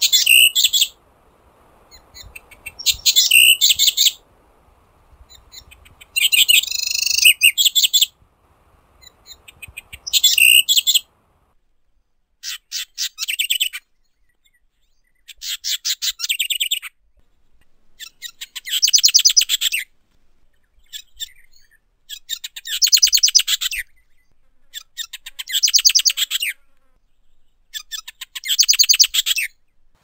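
Socorro wren singing: about ten short, fast, high trilled song phrases, each a second or two long, repeated every few seconds. A faint background hiss lies under the first few phrases and stops about eleven seconds in.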